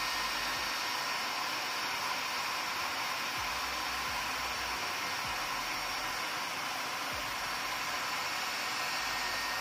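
Handheld hair dryer running steadily on full heat: an even rush of blown air with a faint steady whine from its motor.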